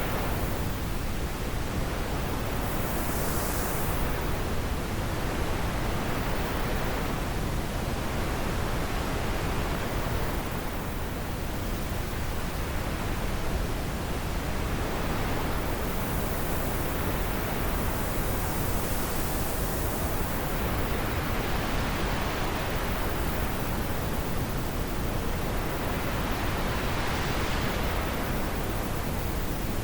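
Wind blowing steadily, its hiss slowly swelling and easing in gusts every several seconds.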